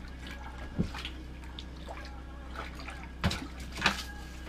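Water splashing and dripping at a hole in the ice as a fish is pulled up through it. There are sharp splashes about a second in, and two more near the end.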